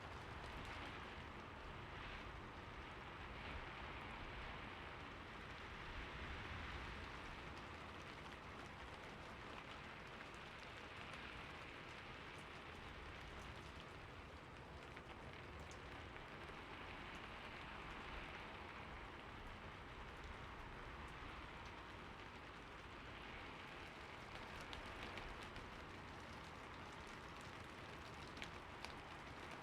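Soft, steady rain falling on city surfaces, with a few faint drop ticks near the end.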